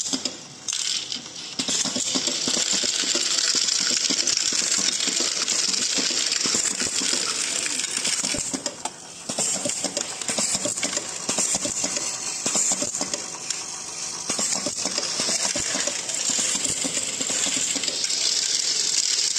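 Automatic screw feeder running: small metal screws rattle and clink continuously as they are fed, over a steady high hiss, with brief lulls near the start and about eight seconds in.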